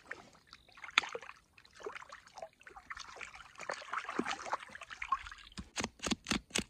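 Water trickling and splashing as a freshly caught fish is washed and cleaned by hand, with irregular clicks and handling noises. Near the end a run of quick, rhythmic strokes starts, about five a second.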